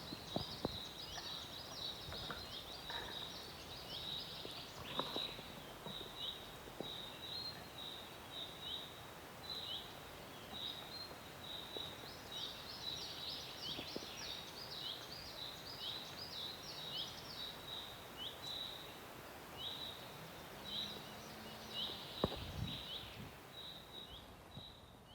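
Small birds chirping: a steady run of short, high chirps, a few each second, with a few faint knocks underneath.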